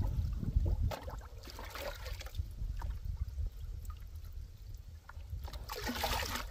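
Water splashing and trickling in a drum as fertilizer is put in to dissolve for drip irrigation. The splashes come in short bouts, the longest near the end, over a low rumble.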